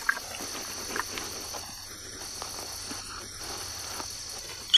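Steady night chorus of crickets chirping, with a few short rustles, the sharpest near the end.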